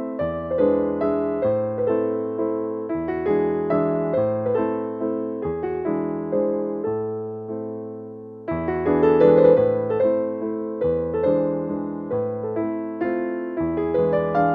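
Background piano music, notes struck in a steady flowing line, with a brief lull about eight seconds in before the phrase picks up again.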